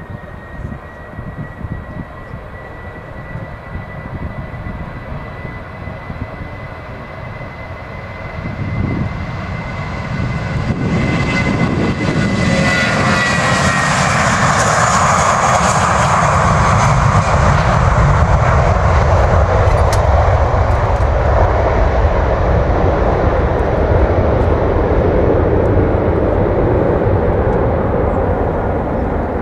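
Airbus A320 jet airliner taking off at full power: a high engine whine draws near and drops in pitch as the aircraft passes, then a loud, steady roar as it climbs away.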